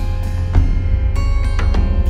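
Background music with a heavy, steady bass and drum hits.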